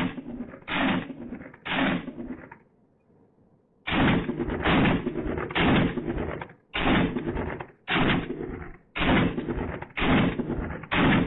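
Glock pistol firing single shots at a steady pace of about one a second, with a pause of just over a second near the start before the shots resume.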